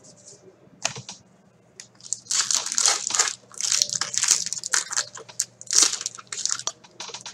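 Foil hockey-card pack wrapper torn open and crumpled by hand: a run of crinkling and tearing that starts about two seconds in, after a single click.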